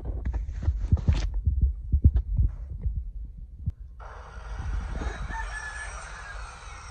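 Dull low thumps for about four seconds, then outdoor ambience in which a rooster crows, its call falling in pitch near the end.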